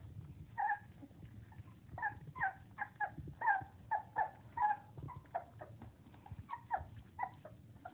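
Four-week-old English Springer Spaniel puppies whining and squealing: many short, high calls, one or two a second, over a steady low rumble.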